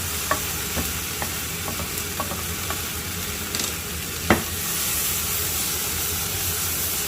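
Pork belly, onion and green onion sizzling in soy sauce in a frying pan while being stirred, with short utensil clicks against the pan and one louder knock about four seconds in.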